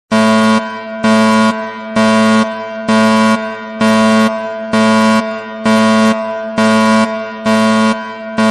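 A buzzy, horn-like electronic tone sounding in loud half-second blasts at one steady pitch, repeated about once a second, each blast trailing off in a fading echo.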